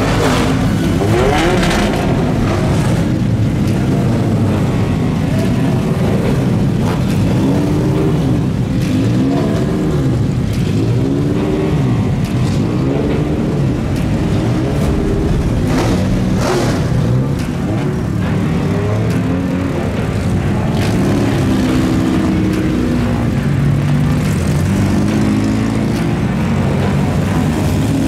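Several four-cylinder dirt-track race cars running together, engines idling with repeated short throttle blips that rise and fall in pitch.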